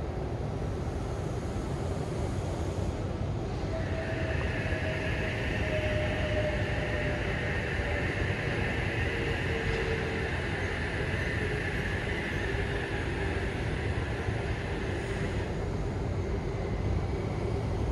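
Sydney Trains H set (OSCAR) electric double-deck train running along the platform, with a steady low rumble and a faint motor whine that slowly falls in pitch. A steady higher hiss joins in about four seconds in and stops near the end.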